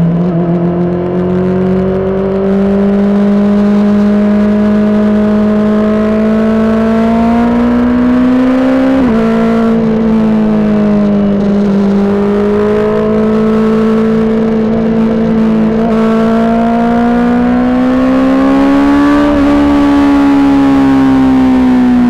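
Honda CBR600RR's inline-four engine, fitted with a Toce aftermarket exhaust, running under throttle while riding. Its pitch climbs and eases slowly, with two sudden small drops in pitch, about nine seconds in and again near twenty seconds.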